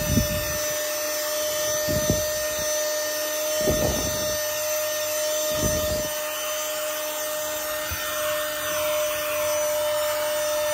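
Battery-powered handheld car vacuum cleaner running steadily with a high motor whine as its nozzle is worked over a carpeted car floor mat. A few short low thumps come about every two seconds in the first half.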